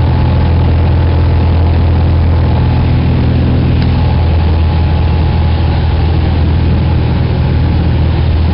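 Light aircraft's piston engine and propeller droning steadily in cruise, heard inside the cabin.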